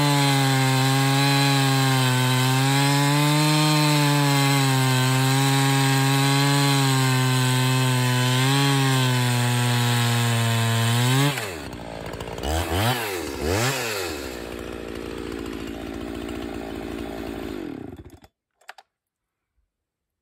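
Husqvarna 365 Special two-stroke chainsaw running at full throttle through a cut, its pitch wavering under load. About eleven seconds in, the throttle is released, there are two quick blips of revs, the saw runs at idle, and then it is switched off about eighteen seconds in.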